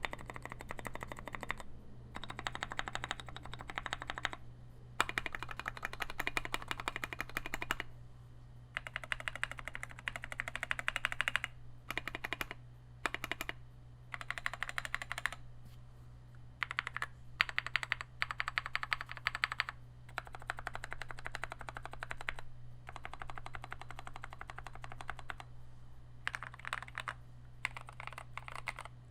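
Fast typing on a 96-layout mechanical keyboard with lubed NovelKey Cream linear switches, brass plate and aluminium case: rapid key strokes in runs of a few seconds broken by short pauses, over a steady low hum.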